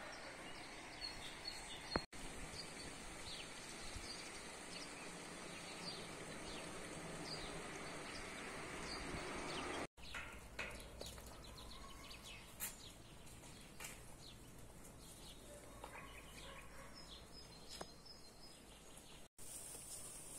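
Outdoor country ambience: scattered bird chirps over a steady low hiss, cutting out briefly three times.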